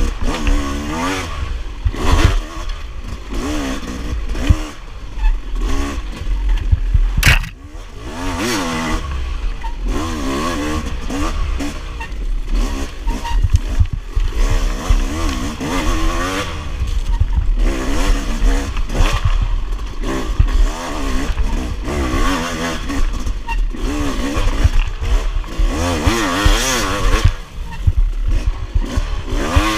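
Enduro dirt bike engine revving up and down continuously as it is ridden through the woods trail, the throttle opening and closing every second or two. A sharp knock about seven seconds in.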